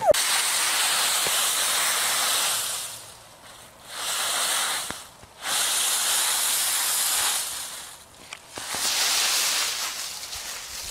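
Dry autumn leaves rustling and crunching as a small dog plunges and thrashes through a leaf pile, in four long bursts separated by brief pauses.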